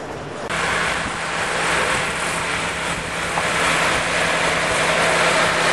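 Narrow-gauge train running: a steady engine hum under a loud rushing noise that starts suddenly about half a second in.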